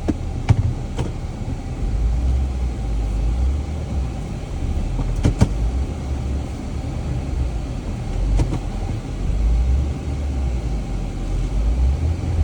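Jeep engine running under load in low gear, its low rumble swelling and easing twice as the vehicle maneuvers to turn around in wet, rutted ground, with a few sharp knocks along the way.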